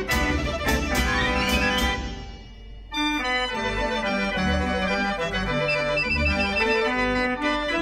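Gavioli fairground organ playing a tune with drum beats. The music drops away briefly about two seconds in, and the organ starts again about three seconds in.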